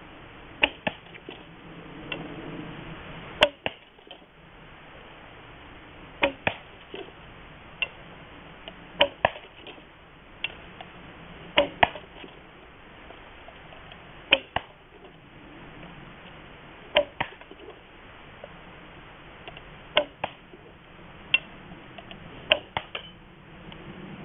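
Prototype recurve bow shot rapidly, with arrows drawn one after another from a back quiver: a sharp snap on each shot, most coming as a close double, about every two and a half seconds, nine or so shots in all.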